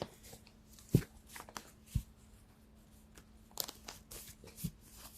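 A deck of oracle cards being handled and shuffled: rustling and flicking of cards, with a few sharp taps, the loudest about a second in and another about two seconds in.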